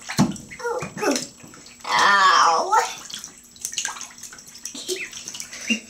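Shallow bathtub water sloshing and splashing as ducklings paddle about. A short, wavering wordless vocal sound stands out about two seconds in, with smaller ones just before and near the end.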